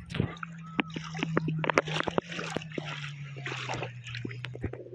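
Shallow sea water splashing and sloshing, with many short sharp splashes. A steady low hum runs underneath, slowly dropping in pitch.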